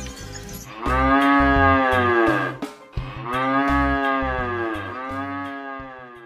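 Cattle mooing: three long, drawn-out moos, each rising and then falling in pitch, the last one shorter.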